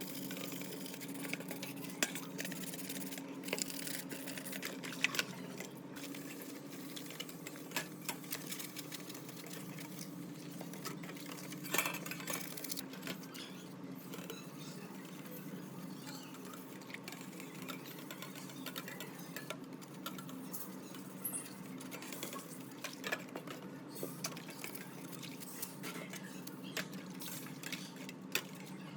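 Light metallic clicks, clinks and taps from small metal parts and hand tools being handled, scattered irregularly over a steady low hum.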